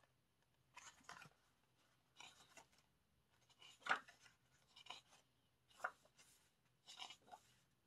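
Faint rustling of photobook pages being turned and handled: about six short paper rustles, roughly a second apart.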